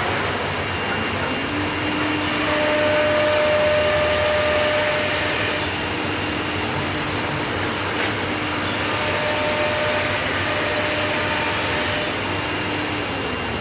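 C.R. Onsrud CNC router running over a steady rushing air noise. A motor whine rises to a steady pitch about a second and a half in, holds, then falls away near the end, like a spindle spinning up and back down.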